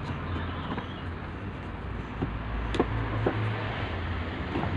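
Steady low hum and background noise, with a few faint clicks about two to three and a half seconds in.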